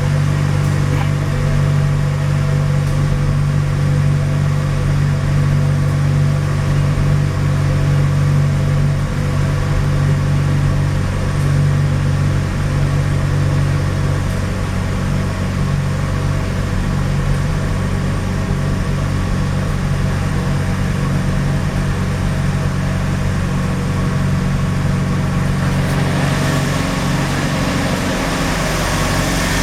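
Mazda RX-7 FD's twin-turbo 13B rotary engine idling roughly and misfiring, its steady running note wavering slightly. A brighter hiss joins about 26 seconds in.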